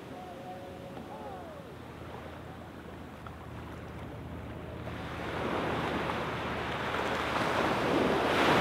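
Small waves washing onto a sand beach; the surf builds from about halfway and peaks as a wave breaks and rushes in near the end.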